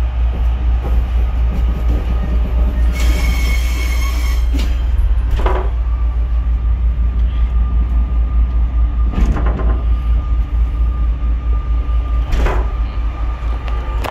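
A Pacer diesel railbus running with a heavy, steady low throb from its engine. A brief high tone with many overtones sounds about three seconds in.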